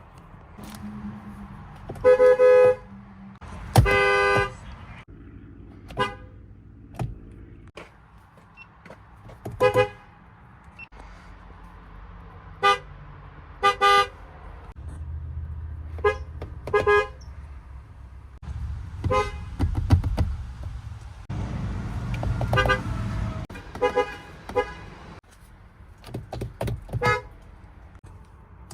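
Horns of GMC trucks and SUVs honking one after another: many short toots and a few longer blasts, the longest about two and four seconds in. Engine and traffic rumble runs underneath, louder past the middle.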